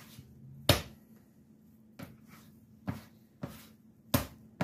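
Soft, sticky dough being lifted and slapped down onto a wooden cutting board while it is kneaded by hand: about five dull slaps, the loudest under a second in.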